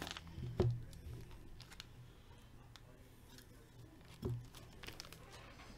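Faint crinkling and tearing of a foil trading-card pack being opened by hand, with two soft thumps, one under a second in and one about four seconds in.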